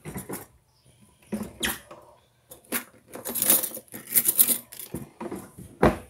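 Rustling, scraping and knocking right against a phone's microphone as the phone is gripped and moved about: an irregular run of sudden noises, busiest in the middle of the stretch, with a sharp knock near the end.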